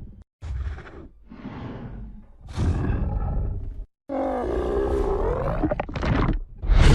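Kong giant-ape creature sound effects: a string of separate roars and grunts, each one to two seconds long and cut apart by brief silences, the loudest near the end.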